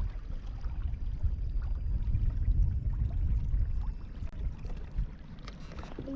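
Water sloshing and gurgling against the hull of a moving kayak, under a low wind rumble on the microphone that eases a little about four seconds in.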